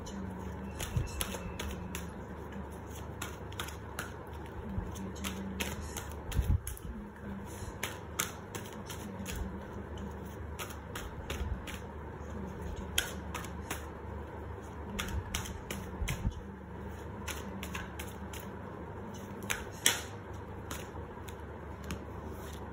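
A tarot deck being shuffled and handled by hand: irregular crisp clicks and snaps of the cards, with cards laid down on a cloth-covered surface, one near the end.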